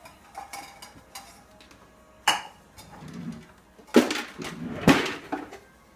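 Dishes clattering as they are handled and set down, with a few sharp clinks, the loudest about two, four and five seconds in.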